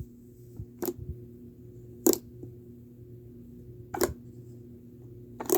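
Slime being worked by hand, giving four short sharp clicks or squelches about one and a half to two seconds apart, over a steady low hum. The slime is still rippy.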